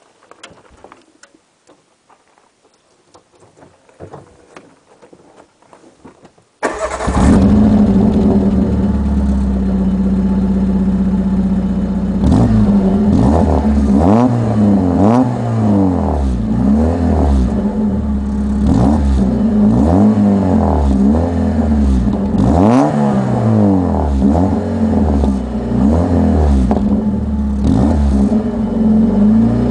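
Peugeot 106 exhaust: after a few seconds of faint scuffs the engine starts abruptly and idles steadily. From about halfway it is blipped again and again, the note rising and falling with each rev.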